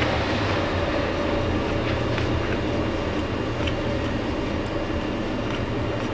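Steady mechanical drone with a low hum, unbroken throughout, with a few faint light clicks over it.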